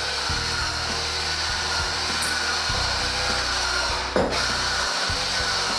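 Masha electric potato masher running, its motor and gearbox turning a plastic rotor cone through boiled potatoes: a steady motor noise with a low hum. A single knock about four seconds in.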